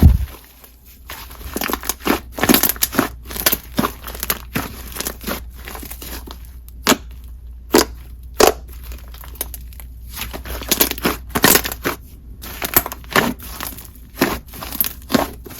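Fluffy pink clay slime being squished and stretched by hand, giving off irregular sharp pops and sizzly crackles.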